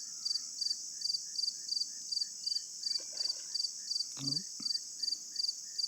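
Insect chorus: a steady high-pitched buzz with a rhythmic chirping about four times a second.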